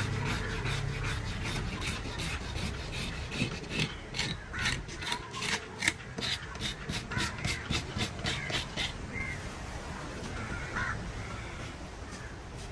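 A large fish being scaled with a hand scraper: quick rasping strokes, about three a second, that stop about three quarters of the way through. A crow caws near the end.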